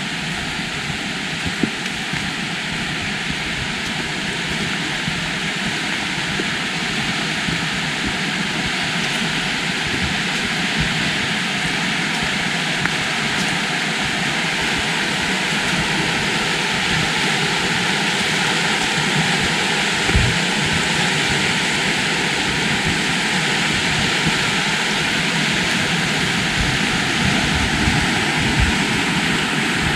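Steady rush of fast-flowing river water, growing gradually louder.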